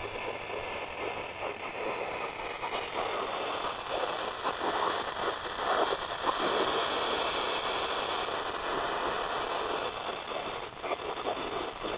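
Dell 17R SE (7720) laptop speakers putting out a continuous hiss broken by irregular crackles, swelling and fading in strength and loudest about midway. It is an electrical noise fault that shows up at boot or on resume only when the power supply is connected, and it remained after the speakers were replaced.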